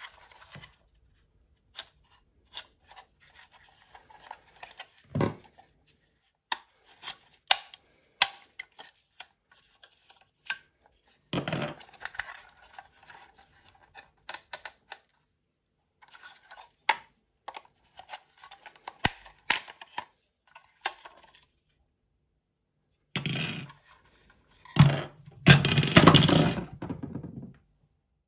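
Plastic clicks, taps and scrapes as a Smart Fortwo 451 heater control panel is handled, its temperature lever moved and its housing worked at with a screwdriver. A louder stretch of scraping and clattering comes near the end.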